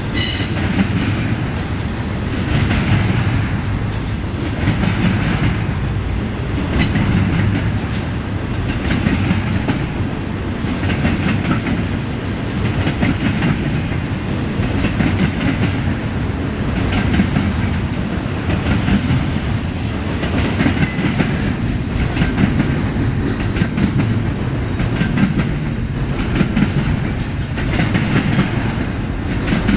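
Double-stack intermodal well cars of a freight train rolling past, a steady rumble with clickety-clack from the wheels that swells about every two seconds as the cars go by. A high wheel squeal dies away right at the start.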